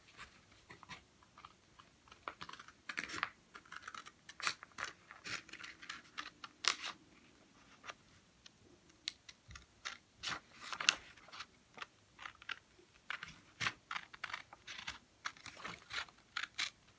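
Scissors snipping through a sheet of paper, with the paper crinkling as it is turned: a run of short, irregular clicks and crackles, with a brief lull about eight seconds in.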